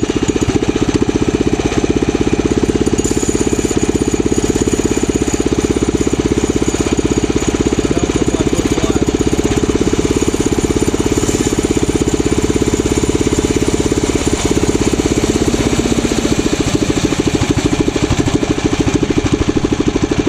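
Tillotson 212cc single-cylinder four-stroke engine, with a header pipe, running at a steady speed with a rapid, even exhaust beat while its new Tillotson TCT carburetor is being tuned.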